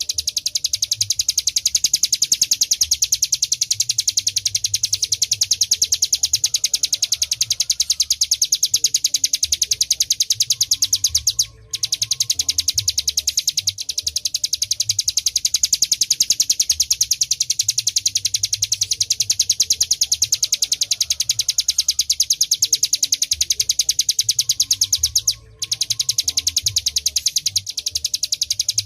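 Ciblek gunung (a prinia) singing a fast, unbroken trill of high, sharp chirps, about ten notes a second. The song stops briefly twice, about a third of the way in and again near the end.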